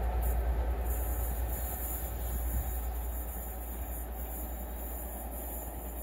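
Rumble of a steam-hauled passenger train, the Battle of Britain class Pacific 34067 Tangmere and its carriages, running away into the distance and fading steadily.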